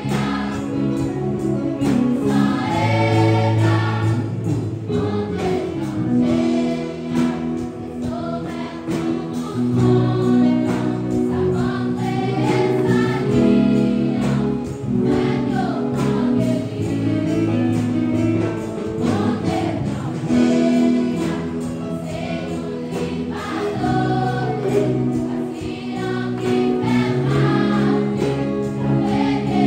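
A girls' choir singing a gospel song in Haitian Creole in several voices, over a low held instrumental accompaniment.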